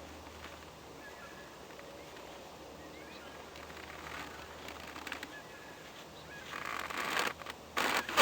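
Quiet outdoor ambience with a few faint, short bird chirps. Near the end a loud rushing noise builds up and turns sharply louder.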